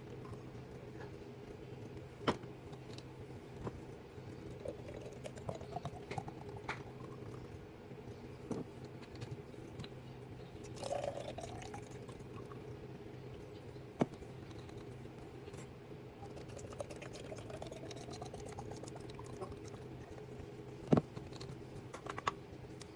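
Liquid poured into a container three times, its pitch rising each time as the container fills. Sharp clicks and knocks of containers being handled and set down come between the pours, over a steady low hum.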